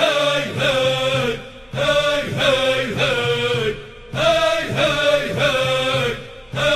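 Voices chanting an Arabic nasheed (militant anthem), in phrases of about two seconds with short breaks between them.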